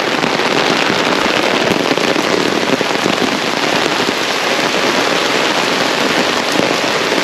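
Steady rain, a dense even patter of drops close by on an open umbrella held overhead and on the wet road.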